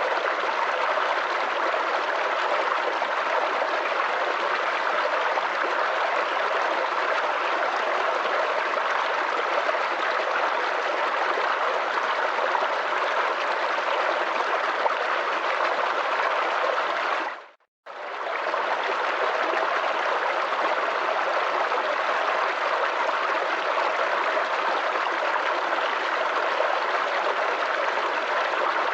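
Small forest creek babbling and trickling steadily over stones. About two-thirds of the way through it cuts out to silence for a moment and comes straight back.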